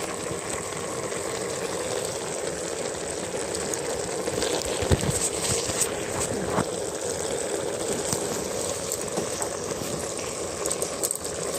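Goat mutton frying in an open pressure cooker: a steady sizzling, bubbling hiss, with a couple of light knocks midway.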